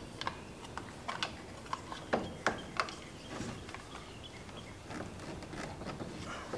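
A few light clicks and knocks from a metal electrical outlet box and conduit being handled and pressed against a wooden wall, bunched in the first three seconds, then near-quiet.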